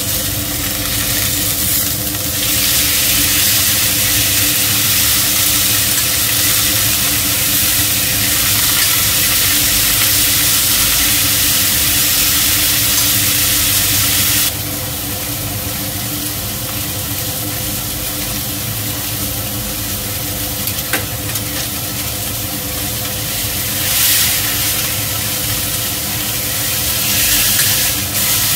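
Beef steaks sizzling in olive oil in a stainless frying pan, turned with metal tongs. The sizzle grows louder about two seconds in, drops abruptly about halfway, and rises again briefly twice near the end. A range hood fan hums steadily underneath.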